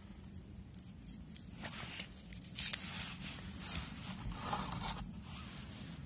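Close handling of firecrackers and their packaging: short scrapes and rustles with a few sharp clicks, the loudest a little under halfway through, then a brief rustling stretch.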